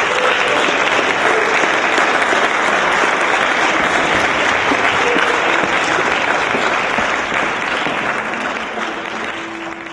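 Audience applauding: dense, steady clapping that starts suddenly and begins to fade near the end.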